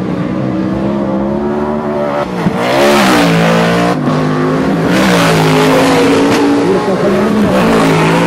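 Several short-course off-road race trucks' engines running at high revs as the pack approaches, getting louder about three seconds in. The engine pitch dips and climbs again a few times as the throttle comes off and back on.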